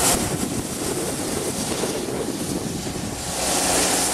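Steam hissing from the standing Pere Marquette 1225, a 2-8-4 Berkshire steam locomotive. The hiss drops away just after the start and returns near the end, over a low rumble of wind on the microphone.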